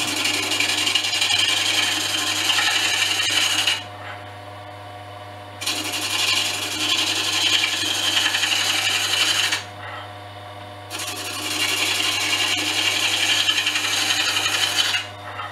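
Carbide cutter scraping spinning olive wood pen blanks on a small wood lathe, in three long passes of about four seconds each. Between passes only the lathe's steady motor hum is left. The cut is getting easier, with less kicking and roughness, as the blanks come round.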